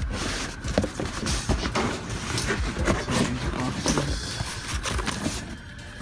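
Rummaging through cardboard boxes and trash in a dumpster: irregular rustling, crinkling and light knocks as boxes are handled and opened.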